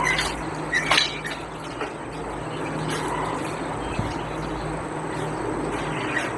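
Rats scrabbling inside a crowded glass-tank trap, giving a few sharp clicks and knocks against the glass (the loudest about a second in) over a steady hiss and low hum.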